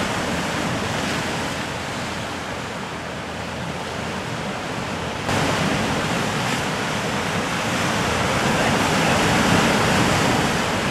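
Sea surf breaking and washing against a rocky shoreline, a steady rushing that jumps suddenly louder about five seconds in and swells further near the end.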